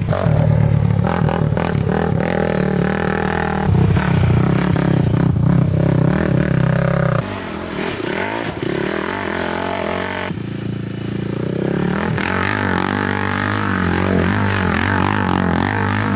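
Honda TRX450R quad's single-cylinder four-stroke engine running through an HMF aftermarket exhaust, idling and blipping the throttle. The note changes and drops in level about seven seconds in.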